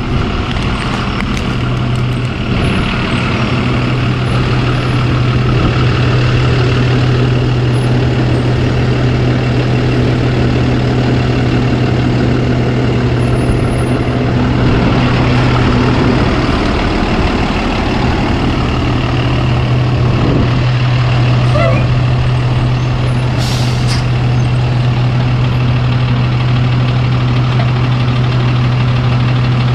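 A machine running steadily: a loud, even drone with a strong low hum, and a short hiss about three-quarters of the way through.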